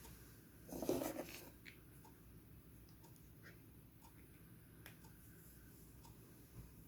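A sleeping man's brief noisy breath about a second in, over faint regular ticking about once a second.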